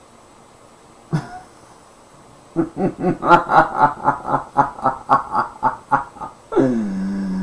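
A man's voice laughing mockingly in a quick run of 'ha-ha' bursts, about four a second for three or four seconds, starting a couple of seconds in, then trailing into a long falling vocal sound near the end.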